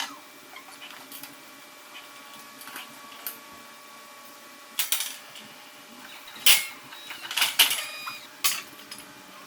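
Metal parts and tools clanking and knocking during forklift mast assembly work: a few scattered hits, the loudest about two-thirds of the way through, followed by a quick cluster of clanks.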